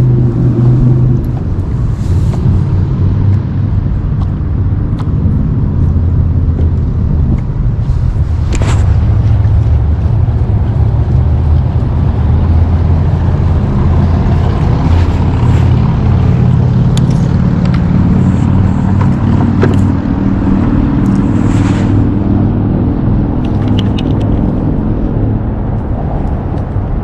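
Steady low rumble of road traffic on the bridge overhead, its pitch drifting as vehicles pass, with a few sharp clicks from handling gear.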